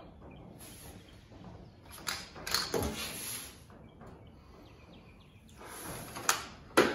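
Handling noise of a toy plastic stethoscope rubbed and pressed against an SKS rifle: rustling scrapes in two spells, with two sharp clicks near the end.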